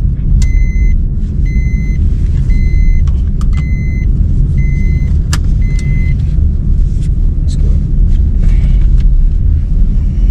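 Car cabin road noise, a steady low rumble, with a seatbelt warning chime beeping about once a second that stops about six seconds in.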